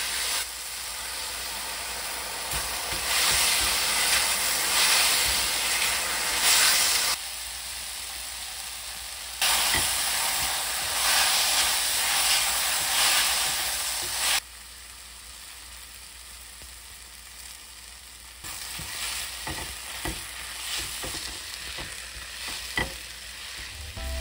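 Sliced shiitake mushrooms sizzling in a hot wok while a spatula stirs and scrapes them. The sizzle drops noticeably quieter a little past halfway, and a few light spatula taps come near the end.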